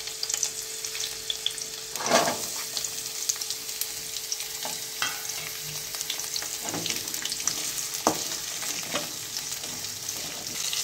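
Chopped shallots and garlic frying in hot oil in a kadai: a steady sizzle, with a spatula stirring in light strokes and a louder stroke about two seconds in.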